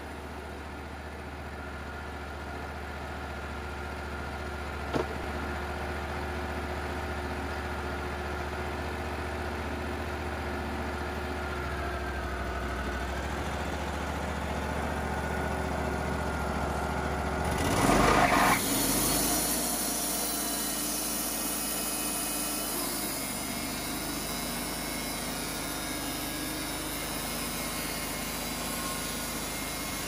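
Wood-Mizer portable band sawmill's engine running steadily. A little past halfway there is a short loud burst, then the engine runs under a changed, heavier note with a steady hiss as the band blade cuts into the log.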